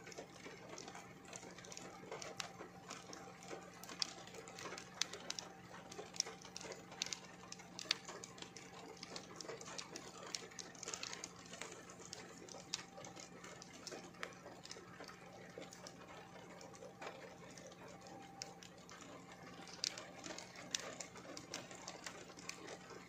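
Rain falling, heard as many faint, irregular taps of drops landing, over a faint steady hum.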